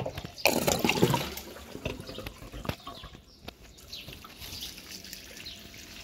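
Homemade toilet flushing: a brief rush of water about half a second in, then water trickling and dribbling down a PVC drain pipe into a bucket, slowly fading.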